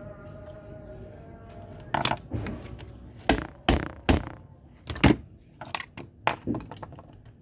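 A series of irregular, sharp knocks and clacks of hard objects, about a dozen, beginning about two seconds in, like tools and parts being handled on a workbench. A steady faint hum with light music lies under the opening seconds.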